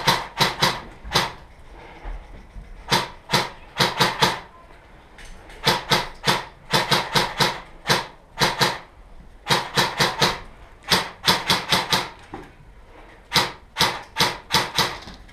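Airsoft gun firing in rapid short strings of two to five shots, again and again, as suppressing fire to keep an opponent pinned.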